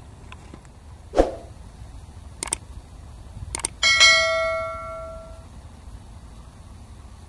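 Subscribe-button sound effect: sharp mouse-style clicks, then a bright notification bell ding about four seconds in that rings out for about a second and a half. A dull thump about a second in.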